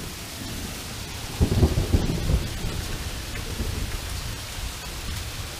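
Heavy rain pouring down steadily. A loud low rumble of thunder comes about a second and a half in and lasts about a second.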